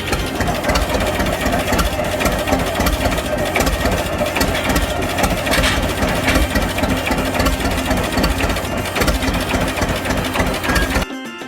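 Tractor engine running steadily, cut off near the end by the start of guitar music.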